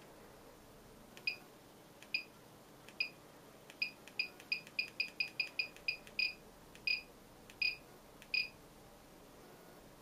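Buzzer in an Arduino Pro Mini light-switch controller giving about sixteen short, high beeps as Apple Remote buttons are pressed. They come about a second apart at first, quicken to several a second in the middle, then slow again.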